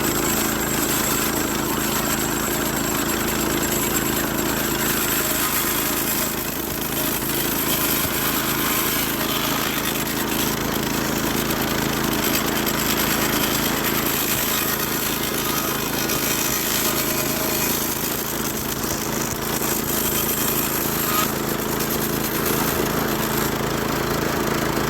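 Milling machine cutting into the bone of a bull skull: a loud, steady machine noise with a constant low hum under it.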